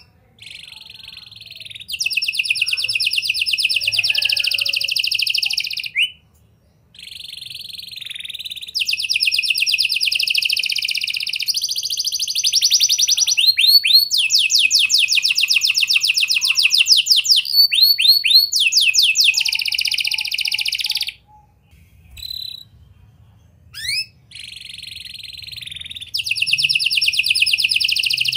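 Domestic canary singing long runs of fast rattling trills, with a brief pause about a quarter of the way through and a few short broken phrases near the end. Through the middle the trills turn into quick repeated sweeping notes.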